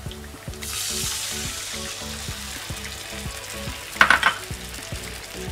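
Tamarind water poured into a hot pan of garlic and chillies frying in oil, sizzling sharply as it hits and then easing to a steady simmering sizzle, while a wooden spatula stirs it. About four seconds in, the spatula gives a brief loud scrape against the pan.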